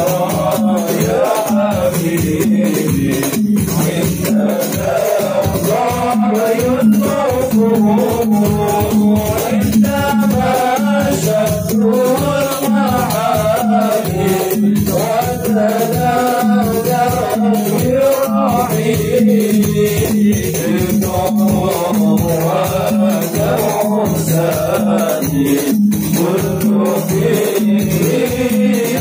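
Men singing an Arabic sholawat chant in praise of the Prophet into microphones, with the crowd joining in, over a steady percussion beat.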